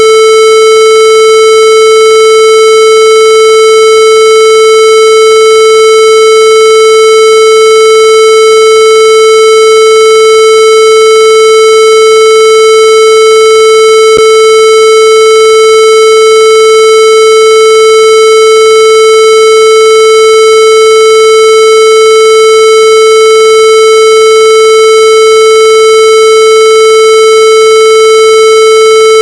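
Loud, harsh electronic tone held at one steady pitch without a break, buzzy with many overtones.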